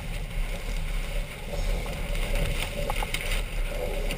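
Wind buffeting the microphone and water rushing along the hull of a Farr 40 racing yacht under sail, with a few light knocks through the middle.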